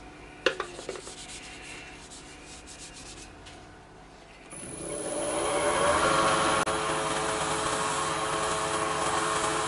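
Wood lathe switched on about halfway through, its motor whine rising as it spins up and then running steadily, with the hiss of a cloth rubbing microfine abrasive paste into the spinning pen blank.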